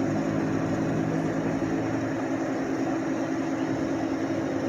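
Off-road vehicle engine running steadily, a constant hum that holds the same pitch.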